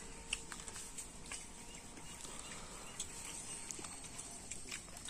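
Faint sounds of people eating with their hands: scattered soft clicks and smacks of chewing and handling food over a steady high hiss.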